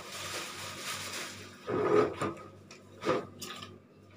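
Rubbing and scraping of hands handling things on a stone work surface, with two louder knocks about two and three seconds in.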